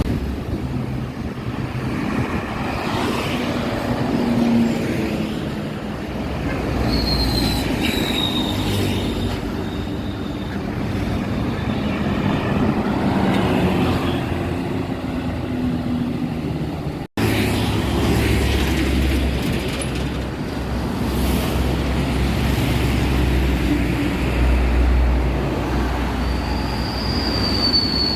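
Heavy road traffic with buses passing: engine rumble and tyre noise, with a thin high squeal that slides down in pitch about a quarter of the way in and again near the end. The sound cuts out for an instant about two thirds of the way through, after which the engine rumble is deeper and louder.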